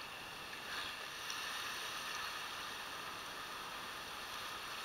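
Steady, fairly quiet wash of sea water moving in a rocky cove, with no distinct splashes.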